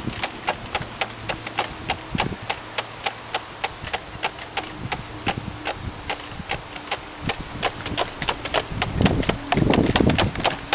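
Flower-shaped garden windmill spinning and clicking rapidly and evenly, about five clicks a second. Near the end a louder rush of low noise comes in over the clicking.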